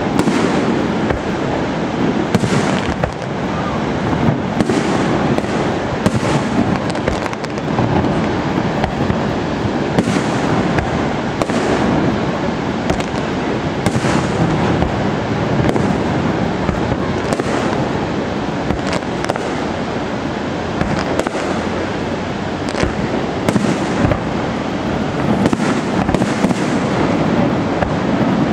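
Fireworks display: aerial shells bursting in quick succession, a bang every second or so, over a steady roar that never drops away.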